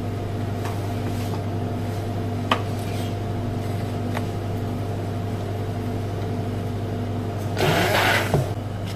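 Steady low hum of kitchen equipment with a single knock about two and a half seconds in; near the end a hand-held immersion blender whirs briefly in a bowl of custard and butter.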